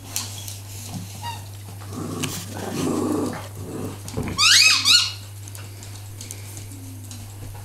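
Small dogs playing together, with a short run of high-pitched squeals about four seconds in.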